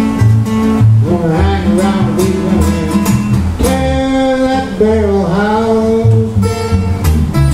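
Two acoustic guitars strummed in a steady rhythm with a moving bass line, while a man sings a line from about a second in, the voice dropping out near the end as the guitars carry on.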